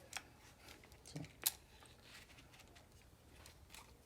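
Faint clicks and taps of hands working a seat belt retractor and its webbing, with one sharper click about one and a half seconds in.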